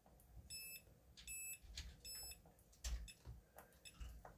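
A Fluke 177 digital multimeter beeps three times, short high beeps about 0.8 s apart, as its probe is touched to pins in diode test. A few faint taps of the probe follow.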